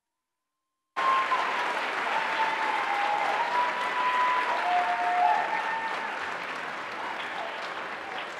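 Audience applause starting abruptly about a second in, after a moment of dead silence, then slowly fading.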